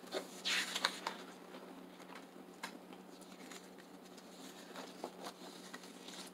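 Paper pages of a disc-bound planner being flipped and smoothed flat by hand: a soft page swish about half a second in, then light rustles and taps of fingers on paper.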